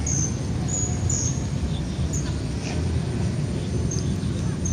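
Outdoor ambience: a steady low rumble, with short high chirps from small birds repeating every half second or so.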